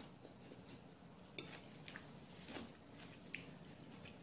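Quiet eating sounds: four faint, short clicks and taps, spread over a few seconds.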